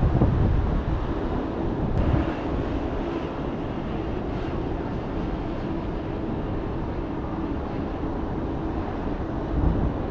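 Steady rumble of trains and road traffic below a rooftop, with wind noise on the microphone.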